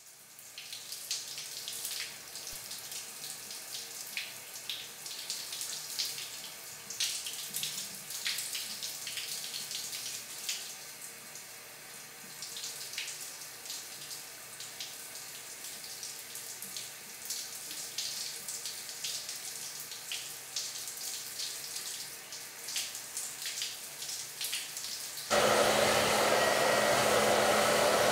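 Shower water running, a steady hiss with irregular splashes. About 25 seconds in, a hair dryer switches on suddenly and runs steadily and much louder, with a low hum under its blowing.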